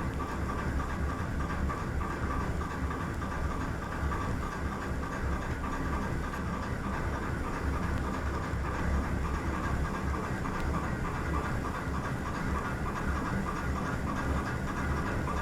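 Ship's engine running steadily, a dense mechanical churn with a low rumble.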